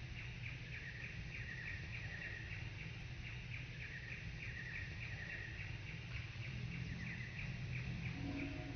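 Outdoor woodland ambience: a high, thin chirping repeated in quick runs of several notes, over a steady low rumble. Near the end a short, low-pitched call sounds briefly.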